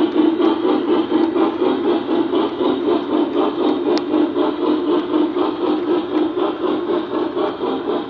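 Three-rail O-scale model freight train of hopper cars rolling along the track: a steady rumble and clatter of metal wheels on the rails, with one sharp click about four seconds in.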